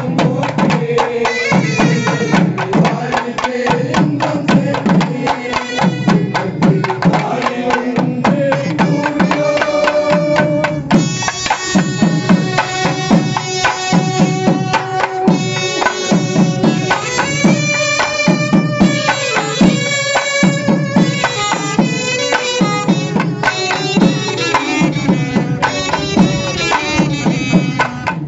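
Laced barrel drums beating a fast, dense rhythm. A group of men sings a Tamil hymn over them through microphones, strongest from about ten seconds in.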